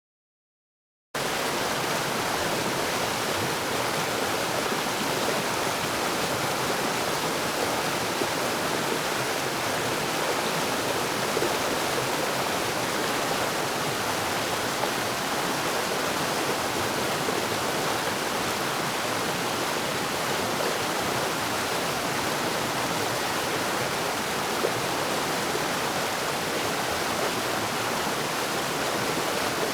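Steady rush of flowing water, starting abruptly about a second in and running on evenly.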